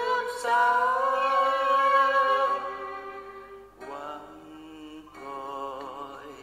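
Background music with a sung melody: a long held note that fades out, then new phrases with vibrato begin about four seconds in.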